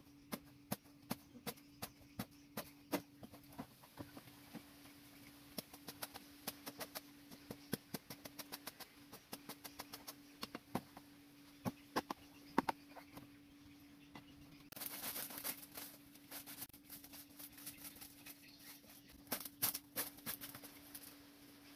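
Machete blade chopping and cutting into a thick green bamboo tube: repeated sharp knocks, about two a second at first, then more irregular, with a brief scraping rush midway. A faint steady hum runs underneath.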